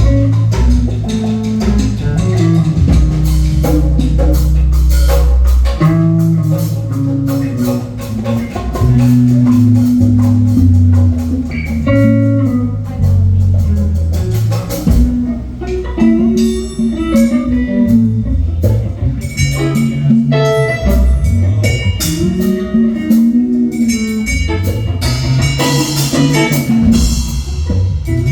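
Live band playing an instrumental jam: a guitar lead with sustained, bending notes over bass guitar and a drum kit.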